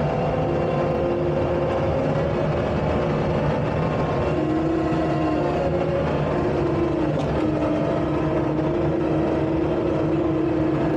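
Takeuchi tracked skid steer running steadily as it works, its engine hum carrying a few tones that shift in pitch every few seconds.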